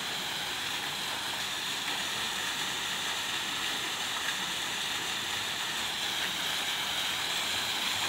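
Water jets of a lit decorative fountain rushing up and splashing back into the basin: a steady, even hiss.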